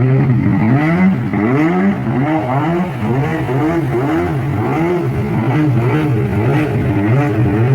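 A vehicle engine revving up and down over and over, its pitch rising and falling about once a second.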